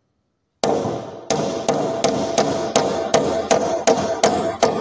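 Metal hammer striking a wooden bench slat in a quick, even run of about eleven blows, roughly three a second, each with a short ring. The first blow lands about half a second in.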